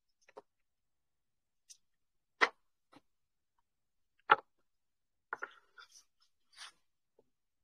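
Handling noise: a few scattered sharp clicks and knocks, the two loudest about two and a half and four and a half seconds in, then a quick run of softer taps and ticks near the end.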